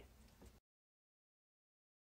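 Near silence: faint room tone for about half a second, then the sound cuts off to dead silence.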